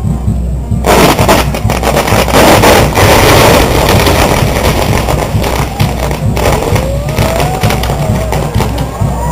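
Fireworks on a castillo fireworks tower catching about a second in, with a sudden loud rush of dense crackling and popping that is loudest over the next couple of seconds, then keeps crackling.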